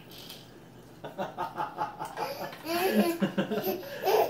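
A baby laughing in repeated short bursts, starting about a second in and growing louder near the end.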